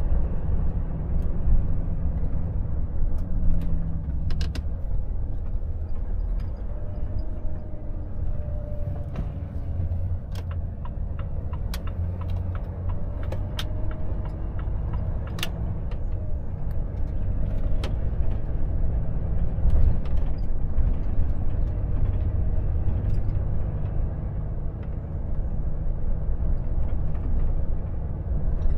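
Volvo FH truck driving at about 40 km/h, heard from inside the cab: a steady low engine drone and road rumble, with scattered light clicks and rattles.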